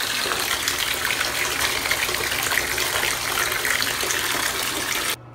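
Tap water gushing from a bathtub spout into the tub, a steady splashing rush that cuts off suddenly near the end.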